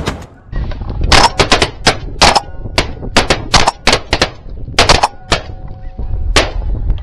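A volley of shotgun fire from several hunters: close to twenty sharp shots in quick, overlapping succession, bunched from about a second in to five and a half seconds, with one last shot near the end.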